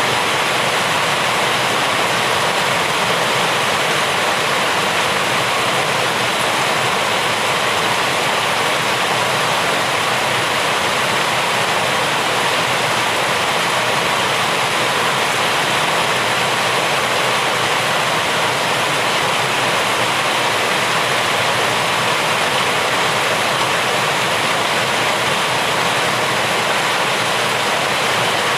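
Rain falling steadily: an even, unbroken rushing hiss with no single drops, thunder or changes standing out.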